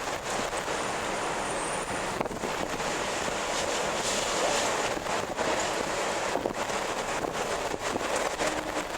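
Strong wind blowing as a steady rushing noise, with brief dips every second or two.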